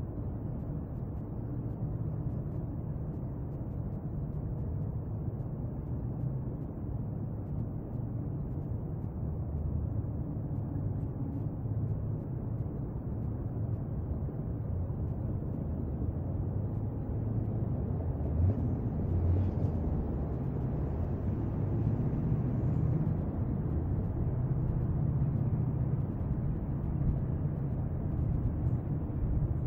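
Steady low rumble of outdoor background noise picked up by a compact camera's built-in microphone, growing slightly louder, with a few faint higher sounds about two-thirds of the way through.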